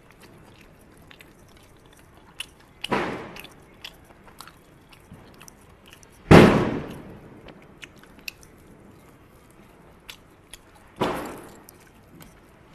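Close-up eating sounds of a man biting and chewing roasted chicken leg pieces: faint smacks and clicks, broken by three loud sudden bursts about three, six and eleven seconds in, the middle one loudest, each fading within about a second.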